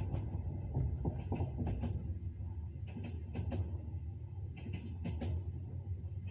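Train wheels clacking over rail joints in groups of knocks about every second and a half, over a steady low rumble of the moving train.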